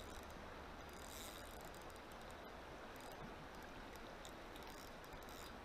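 Faint, steady rush of river water flowing.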